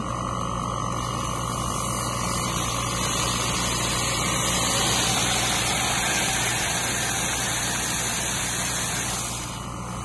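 Hot water rushing out of an opened outlet tap on a heat-pump hot water tank, spraying and splashing onto the ground. It runs as a steady hiss and eases off near the end.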